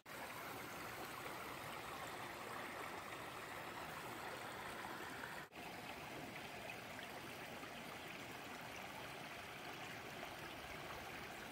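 Shallow forest stream flowing steadily over stones, with a brief dropout about halfway through.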